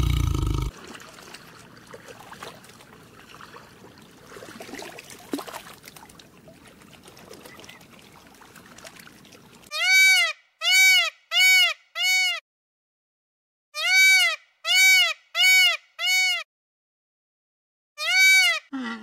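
Indian peacock calling: nine loud calls, each rising then falling in pitch, in two quick runs of four and then a single call near the end. Before them, the last of a deep tiger roar cuts off within the first second, followed by several seconds of faint background noise.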